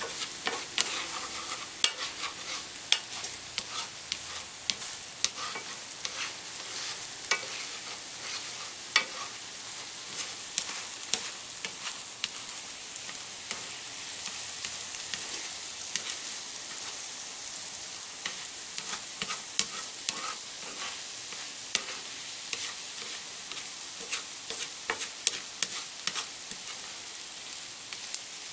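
Eggs, shrimp and zucchini sizzling in a hot frying pan as a spatula stirs the setting eggs around, with a steady hiss and sharp clicks and taps of the utensil against the pan scattered throughout, thinning out in the middle.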